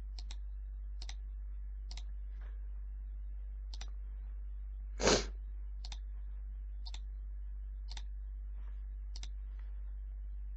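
Computer mouse clicks, single and in quick pairs, at irregular intervals, over a steady low electrical hum. One louder short noise comes about five seconds in.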